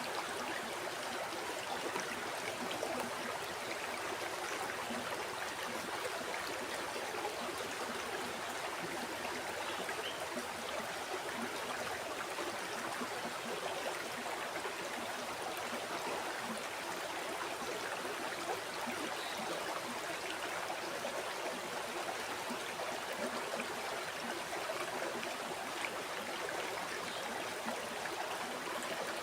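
River water flowing and babbling steadily over stones, an even rushing with small gurgles.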